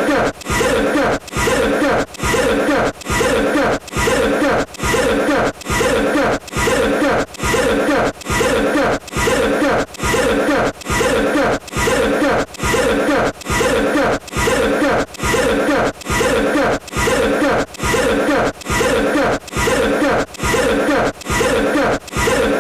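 A voice coughing over and over in an unbroken, evenly paced loop, about three identical coughs every two seconds.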